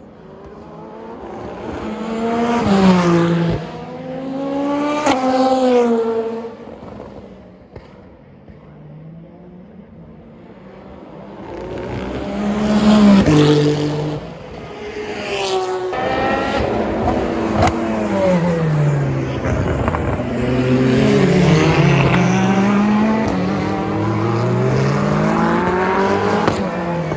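Race cars passing one after another at speed, engine notes swelling and fading with each pass and pitch stepping up and down as they change gear. Two cars pass about 3 and 5 seconds in and another about 13 seconds in, then a close string of cars goes by without a break from about 16 seconds on.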